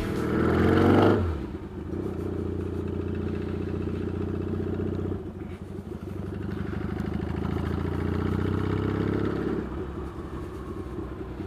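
Yamaha XS650 parallel-twin engine running while the motorcycle is ridden: a steady note, a brief dip about five seconds in, then the pitch climbs as it accelerates and falls away near the end as the throttle eases off.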